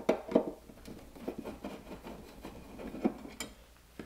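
Screws being undone by hand from the side of a sheet-metal transfer switch case: irregular small clicks and scrapes of metal, with a few sharper knocks near the start.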